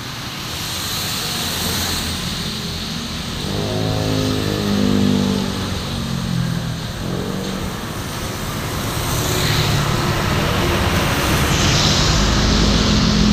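Road traffic on a wet road: a steady hiss of tyres on the wet surface, a vehicle engine passing about four seconds in with its pitch dropping as it goes by, and near the end a big intercity coach passing close with a deep engine rumble.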